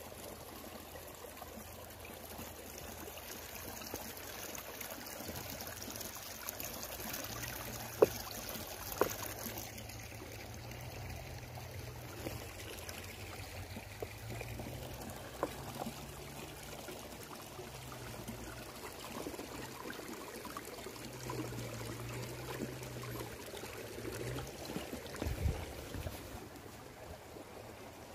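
Steady running water, like a small stream trickling over stones, with a few sharp clicks, the loudest about 8 and 9 seconds in.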